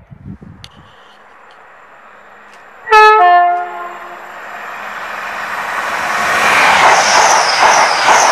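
Passenger train sounding its two-tone horn about three seconds in, a short high note dropping to a lower one. It then approaches at speed and passes close by, the rush of wheels on rail building to a peak near the end, with repeated clacks and a high whine.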